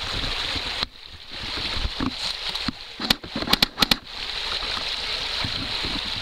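Small stream rushing over rocks, a steady hiss that drops away briefly about a second in and returns. A little past halfway comes a quick run of about five sharp clicks or knocks, the loudest sounds.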